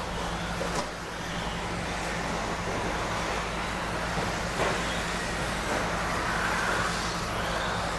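Electric RC stadium trucks with 13.5-turn brushless motors racing on an indoor dirt track: a steady mix of motor whine and track noise, with a sharp knock about a second in and another halfway through.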